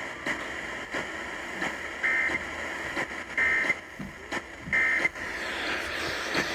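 Three short bursts of Emergency Alert System data tones, the end-of-message signal that closes a broadcast alert, about 1.3 seconds apart. They come through a radio receiver over steady hiss and scattered crackles.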